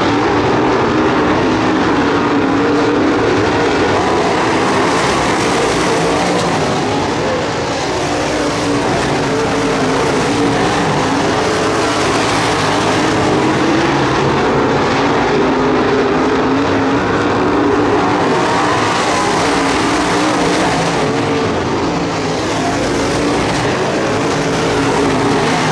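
Dirt-track modified race cars running at racing speed, their engines making a loud, steady drone that eases off slightly twice.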